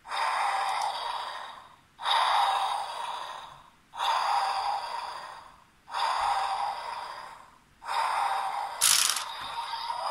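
Electronic sound effect from the DX Tiguardora toy's built-in speaker: a rush of breathy noise that starts sharply and fades, repeated five times about every two seconds, with a short sharp hiss near the end.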